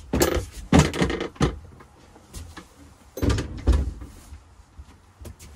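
Wooden knocks and thumps of the boat's companionway stairs being handled and set down. There is a cluster of knocks in the first second and a half, another heavy pair about three seconds in, then two light clicks near the end.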